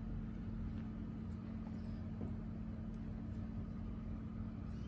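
Steady low background hum and rumble with one constant low tone, and a few very faint ticks.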